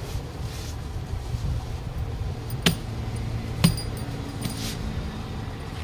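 Metal bangles on a worker's wrist clinking twice, about a second apart, with a faint ring, as he presses a patch into a car tyre, over a steady low rumble.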